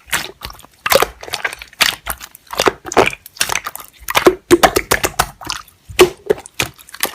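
Slime being squished and pressed by hand, a run of irregular wet clicking and popping squelches.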